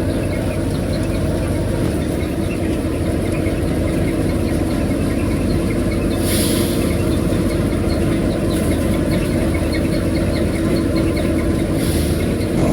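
Engine-driven farm machinery running steadily, with a constant hum and a fine regular ticking. Two short bursts of hiss come about halfway through and near the end.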